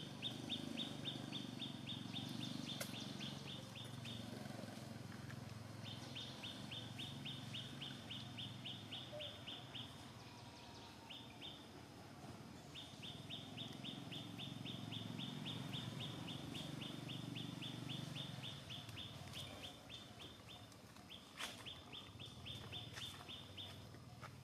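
A bird chirping in rapid high trills, about six or seven short chirps a second, in runs of several seconds with short pauses between them, over faint low background noise.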